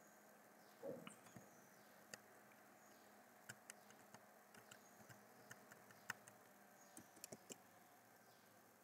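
Faint, irregular clicks of computer keyboard keys being pressed, about fifteen of them over several seconds, with a soft thump about a second in; otherwise near silence.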